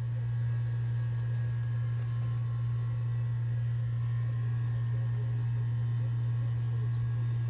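A steady low hum with no change in pitch or level.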